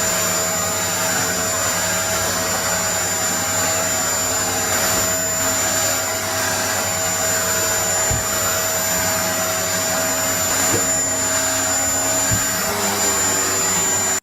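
Vacuum cleaner running steadily: a constant loud rushing with a thin high whine, cutting off abruptly at the end.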